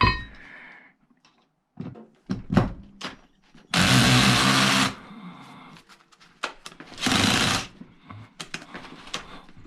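A power drill runs in two short bursts: about a second long near the middle, then a shorter one a few seconds later. Light clicks and clatter of parts being handled come before and between them.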